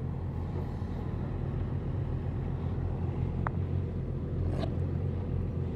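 Motorcycle engine running in slow traffic, heard from the rider's onboard camera as a steady low rumble with some road and wind noise. There is a short click about three and a half seconds in.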